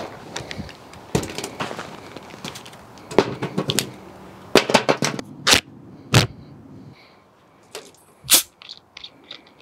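A run of sharp knocks and clacks as bags, a bottle and a roll of duct tape are set down on a glass tabletop, the loudest about five to six seconds in. About eight seconds in, the cap of a two-litre plastic soda bottle is twisted off with a short fizzing hiss.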